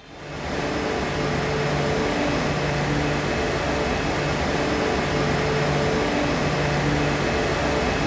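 Conveyorised PCB strip-etch-strip processing line running: a steady rushing hiss of spray and pumps, with a low hum that cuts in and out every second or two.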